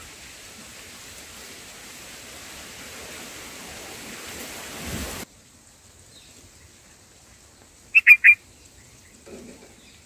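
A steady hiss that cuts off suddenly about halfway. Then, about eight seconds in, three short, loud, high calls in quick succession from a bulbul at its nest.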